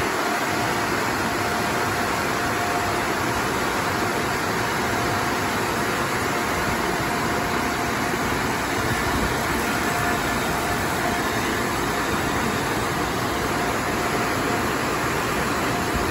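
Touchless car wash dryer blowers running: a steady, loud rush of blown air with a faint high whine over it.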